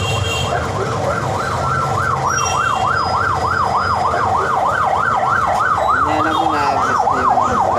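An emergency vehicle's siren in its fast yelp mode, a wail sweeping up and down about three times a second, over low traffic rumble.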